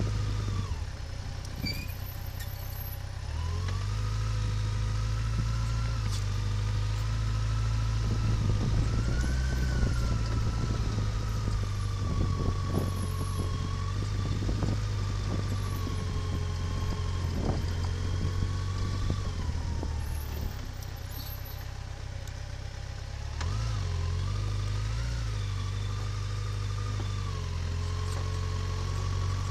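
A motor vehicle's engine running steadily while driving, its note shifting pitch a few times, with some rattling.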